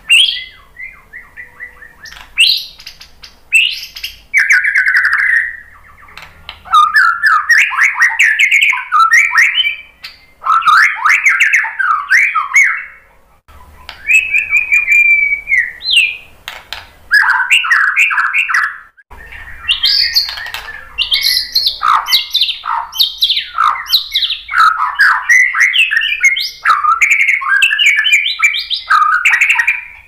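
White-rumped shama singing a long, varied song of fast trills, rattles and whistled sweeps, broken by two short pauses. It is a full song showing off its imitated phrases (isian).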